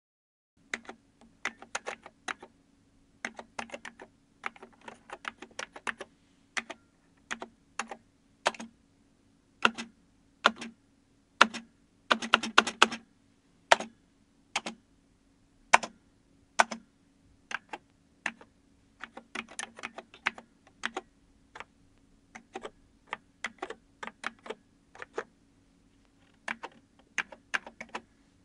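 Typing on a computer keyboard at a medium pace: irregular runs of key clicks broken by short pauses, with a quick burst of keystrokes about halfway through. A faint steady hum sits underneath.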